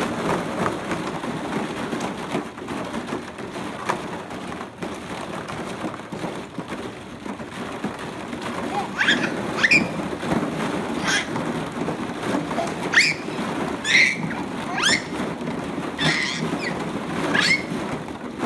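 Hollow plastic ball-pit balls clattering and rustling against each other and the plastic wading pool as a toddler churns them with his hands. From about halfway through, the toddler gives a string of short, high excited squeals.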